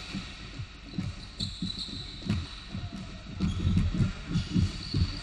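Irregular low thuds of a basketball being dribbled and players' feet on a hardwood gym court, thickening about three and a half seconds in, with short sneaker squeaks.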